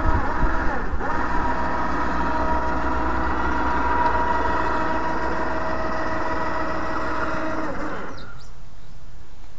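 Electric motor of a Bundutop hard-shell rooftop tent lowering the roof: a steady motor whine over a low hum, which stops about eight seconds in.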